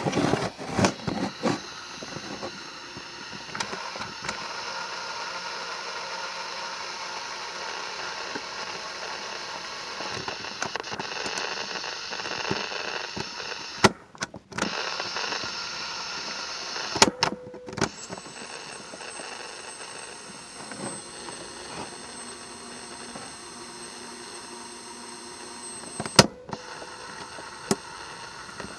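GE 3-5346A battery-operated cassette recorder running in play with no cassette loaded, giving a steady whirring hiss with faint shifting tones. There are handling knocks in the first couple of seconds and sharp clicks about seventeen and twenty-six seconds in. The noise cuts out briefly about fourteen seconds in.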